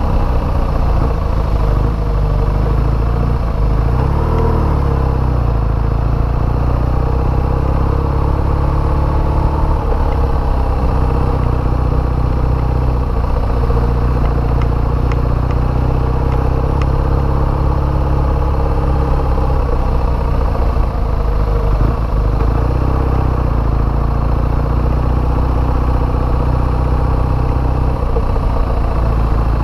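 BMW motorcycle's engine running steadily under way, with road and wind noise. The pitch briefly rises and falls about four seconds in.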